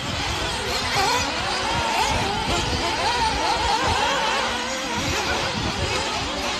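Radio-controlled off-road buggies racing on a dirt track, their motors whining with a pitch that keeps rising and falling as they accelerate and brake.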